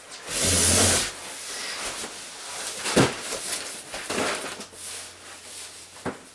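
Rustling and rubbing from handling stored things such as clothes and bags, loudest in the first second, with a sharp knock about three seconds in and another near the end.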